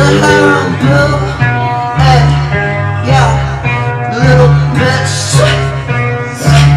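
Loud hip-hop music: a heavy bass line changing note about once a second, a wavering melodic line over it, and steady percussion.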